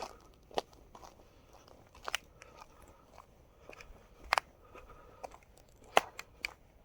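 Footsteps crunching on frozen sleet and ice: separate sharp crunches every second or two.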